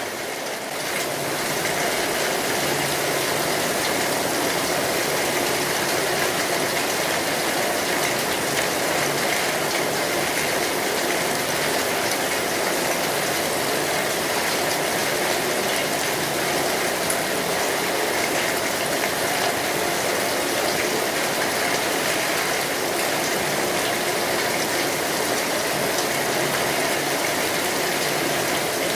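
Steady rain pattering on an umbrella canopy, heard from beneath it as a dense, even hiss of drops.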